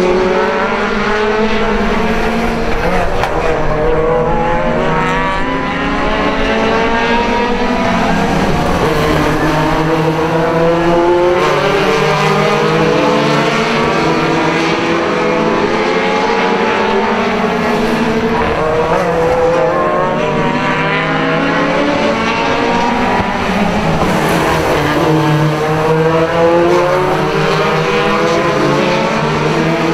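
A pack of National Hotrod race cars racing together, their four-cylinder engines revving. The pitch keeps rising as they accelerate and dropping as they lift off, with several engines overlapping.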